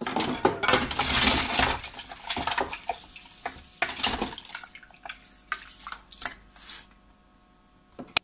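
Washing up at a kitchen sink: a dish brush scrubbing with splashing water for the first two seconds, then scattered clinks and knocks of dishes and pans that die away.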